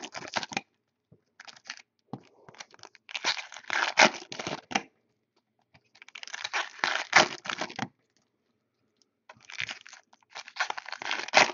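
Wrapping on Topps Chrome trading card boxes and packs being torn and crinkled by hand, in three bursts of a second or two each with short quiet gaps between.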